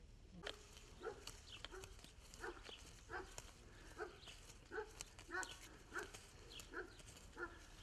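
An animal calling faintly in short, repeated calls, about two a second, starting about half a second in, with a few sharp clicks among them.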